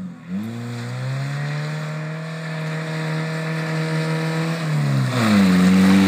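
Car engine accelerating in gear, holding a steady pitch, then a gear change about five seconds in, with the pitch dropping and climbing again as the car comes past close by, louder. The car runs with its exhaust silencer removed.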